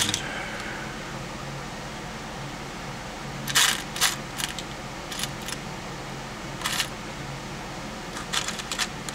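Small metal parts clinking and tapping as they are handled: a scattering of sharp clicks starting about three and a half seconds in, with a few more near the end.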